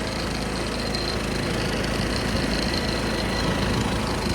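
1976 John Deere 300 lawn tractor's single-cylinder Kohler engine running steadily while the tractor drives along, with a faint steady whine above it.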